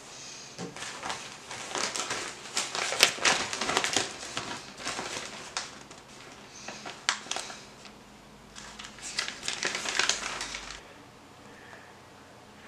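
Newspaper pages rustling and crinkling as the paper is picked up, opened and handled, in three spells of crackly noise that stop shortly before the end.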